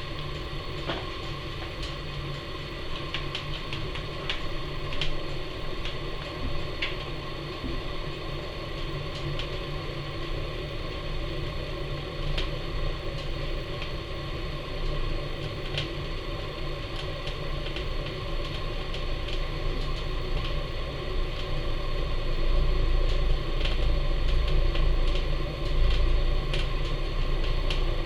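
Wood fire burning in the firebox of a Napoleon model 150 wood-fired furnace: a steady low rumble of draft with scattered crackles and pops. The ash pan door stands open for full draft while the fire builds up, and the rumble grows louder a few seconds before the end.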